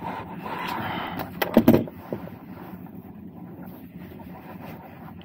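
Rummaging for a tool by the seat of a truck cab: a short, loud burst of knocks and rattles about a second and a half in, over a steady low running hum.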